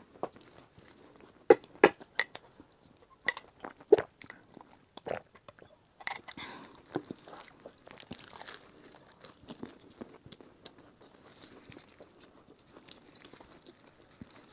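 Close-miked crunching and chewing of a flaky sesame-topped pastry: several sharp crisp crunches in the first four seconds, then more crunching and softer chewing.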